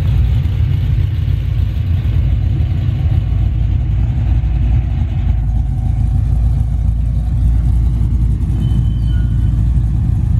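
Ford Lightning pickup's V8 idling steadily, still warming up and idling a little rough.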